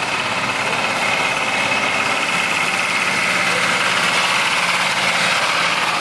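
Engine of a small vintage cab-over utility truck running as it drives slowly past. It grows louder, loudest about four to five seconds in as the truck comes alongside.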